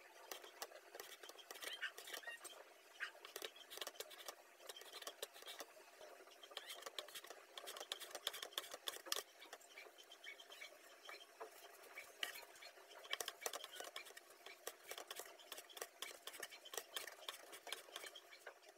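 Kitchen knife chopping bread crusts on a wooden cutting board. It makes a quiet, fast, uneven run of light knocks as the blade strikes the board.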